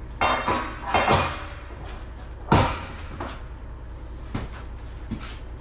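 Metal clanks and knocks at the stainless steel bulk milk tank as the dipstick and lid fittings are handled during the level reading, a few sharp strikes with the loudest about two and a half seconds in. A steady low hum runs underneath.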